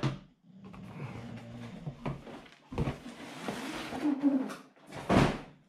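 Foam packaging insert and cardboard box being handled and moved on a table: rustling and scraping, with a sharp knock at the start and a louder thud about five seconds in.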